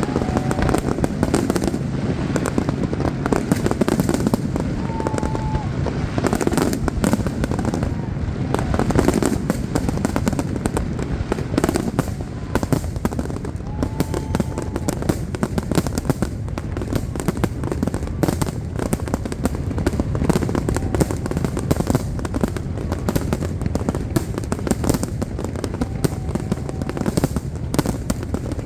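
Large aerial fireworks display: a dense, continuous barrage of shell bursts and crackling with no letup.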